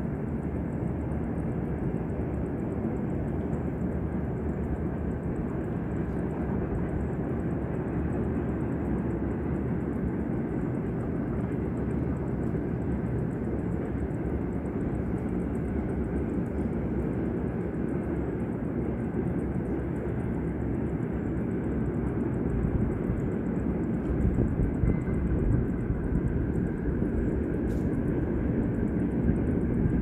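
Steady low rumbling background noise with no distinct events, growing louder and more uneven in the last several seconds.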